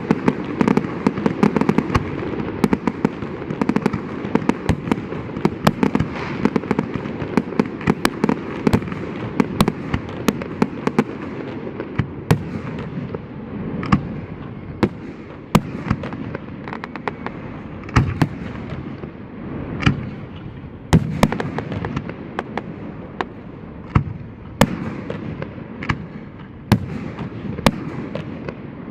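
Fireworks display: a dense barrage of rapid bangs and crackling, thinning out about halfway through to separate sharp reports, each with a short low boom.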